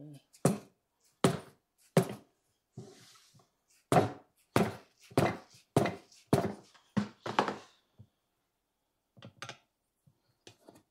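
Dull thunks, about eleven in all: three in the first two seconds, a quick run of about seven roughly half a second apart in the middle, and one more near the end, as a riding-mower tire is forced by hand and screwdriver to work its bead over the lip of the steel rim.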